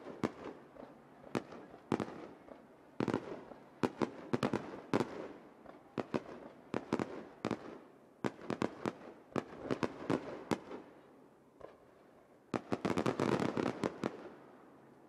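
Aerial firework shells bursting in a finale barrage: a steady string of sharp bangs with crackling between them, a short lull, then a dense rapid volley near the end.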